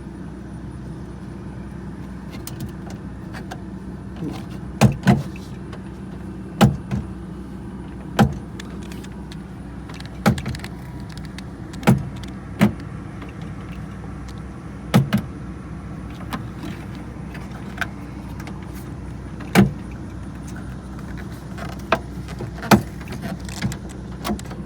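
Sharp, irregular clicks and knocks, about a dozen in all, as hands and tools work on parts inside a car door with its trim panel removed. A steady low hum runs underneath.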